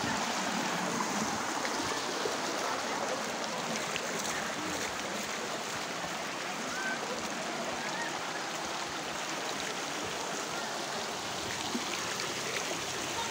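Steady rushing of running water, the flow of muddy water after a flash flood, holding an even level throughout.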